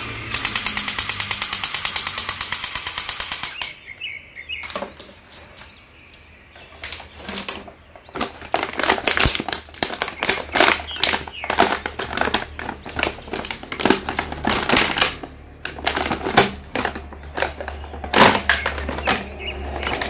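Battery-operated crawling toy soldier giving a rapid, even rattle of about a dozen clicks a second, which stops after three and a half seconds. After a short lull, a plastic bag around a boxed action figure crinkles and rustles in irregular bursts as it is handled and opened.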